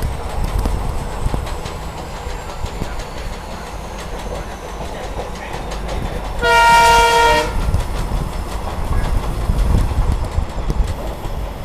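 Passenger train running, heard from on board: steady low rumble with wheel clatter over the rails. About halfway through, a diesel locomotive horn sounds once as a chord for about a second.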